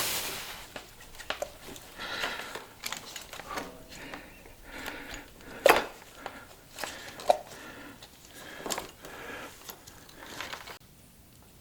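Hand work on a Lectron carburetor: scattered small metallic clicks, taps and scraping as parts are turned and handled, with one sharper click about halfway through.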